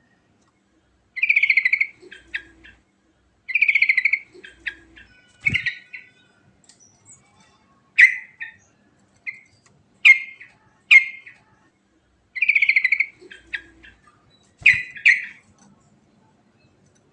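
Yellow-vented bulbul (trucukan) singing in short bright phrases. Some are rapid rolling trills ("ngerol") and others are sharp single notes, with silent gaps between them.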